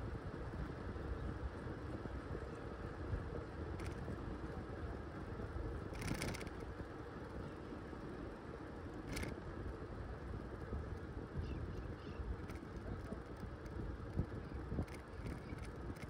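Riding along on a bicycle: steady wind rush on the microphone and tyre rumble on the road surface, with a couple of sharp clicks about six and nine seconds in.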